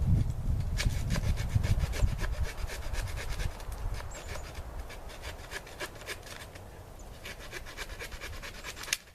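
Bone-saw blade of a Real Avid Viscera folding belt knife sawing back and forth in quick, even rasping strokes, several a second, getting gradually quieter. A sharp click near the end.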